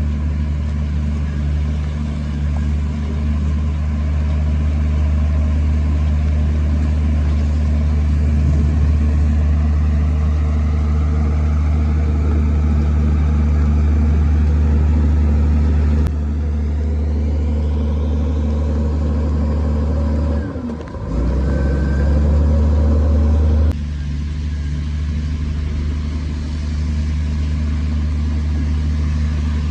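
Heavy diesel engine of earthmoving machinery running steadily with a deep hum. The sound changes abruptly about 16 seconds in and again near 24 seconds, with a brief drop in level around 21 seconds.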